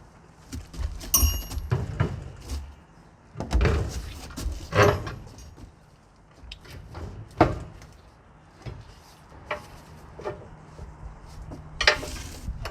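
Irregular clunks and knocks as a heavy truck battery and its metal hold-down bracket are worked into place in the battery box. A hit about a second in rings briefly like struck metal, and a short scrape comes near the end.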